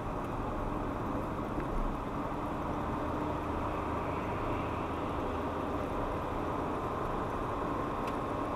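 Steady road and engine noise of a car cruising on a highway, heard from inside the cabin through a dashcam's microphone.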